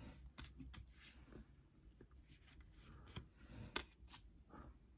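Faint rustling and light clicks of Pokémon trading cards being slid one behind another in the hand and laid down on a wooden tabletop.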